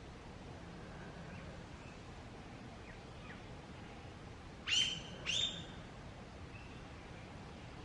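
Two short, high-pitched animal calls a little over half a second apart, about two-thirds of the way in, with fainter calls earlier over quiet forest background.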